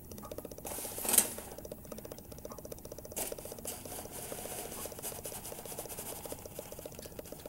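Shredded cheese being sprinkled by hand onto a casserole in a metal baking pan: light pattering and rustling, with one louder rustle about a second in. A fast, even ticking runs underneath from under a second in.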